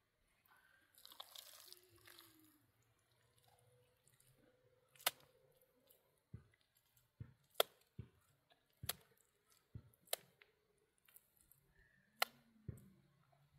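Scattered sharp taps and knocks, about ten spread over the second half, with faint soft squelches between them: hand work setting concrete blocks in wet mud mortar.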